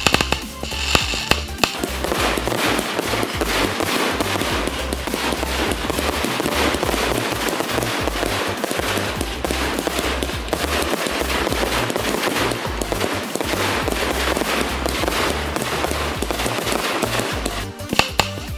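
Fireworks crackling in a dense, continuous barrage of rapid pops, over music with a steady bass line. The crackle builds about two seconds in and falls away about a second before the end.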